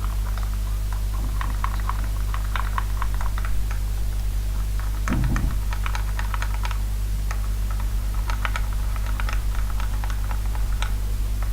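A stirring utensil clicking and tapping irregularly against a bowl as a slime mixture of liquid soap and acetone is stirred, over a steady low hum, with a brief low thump about five seconds in.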